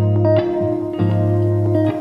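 Background music led by plucked guitar, a few notes picked over a held bass.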